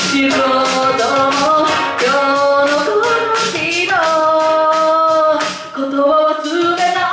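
A woman singing a pop melody live into a handheld microphone over a backing track with a steady beat. About halfway through she holds one long note.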